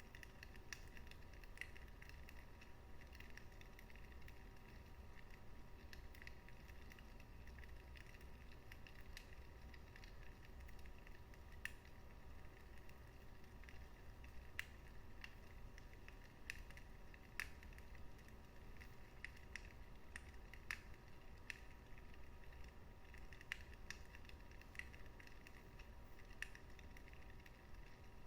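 Wood fire in a fireplace crackling softly, with irregular sharp pops and snaps every fraction of a second and a louder pop every few seconds, over a low steady rumble.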